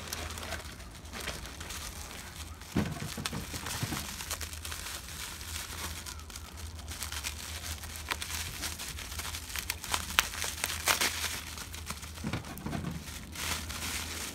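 Plastic packaging crinkling and rustling as it is handled and unwrapped, in irregular crackles with louder rustles about three seconds in and again around ten to eleven seconds.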